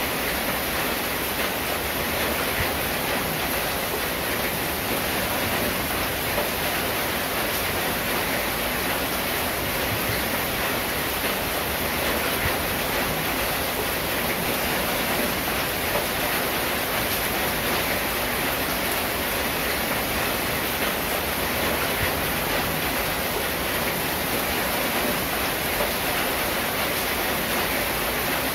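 Steady rain falling on a corrugated zinc roof: an even, unbroken hiss of drops with no thunder or single strikes standing out.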